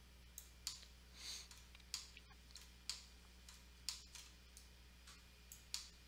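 Faint computer mouse clicks, about seven spaced irregularly roughly a second apart, over a steady low electrical hum.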